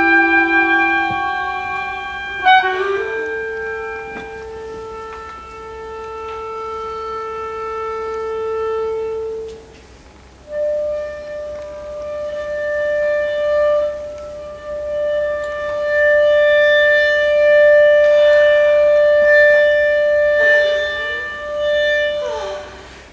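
Chamber ensemble playing contemporary music: several long held notes overlap, with a sharp accent about two and a half seconds in. Later a single sustained note carries on, with noisy swells near the end.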